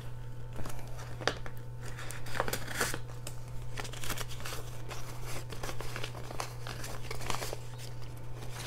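Paper banknotes being handled, with the crinkle of a clear plastic zip pocket in a budget binder as bills are slid in and out of it and then fanned and counted. The rustling and crackling is irregular, with sharp snaps throughout.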